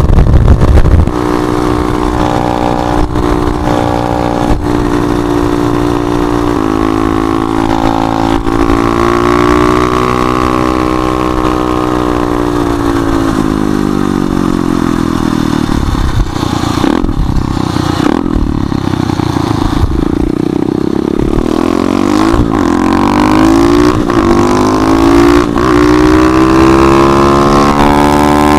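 Small single-cylinder four-stroke pit bike engine running hard at road speed. Its pitch drops in a step at a gear change about six seconds in, then rises and falls slowly with the throttle. A loud rush of wind hits the microphone in the first second.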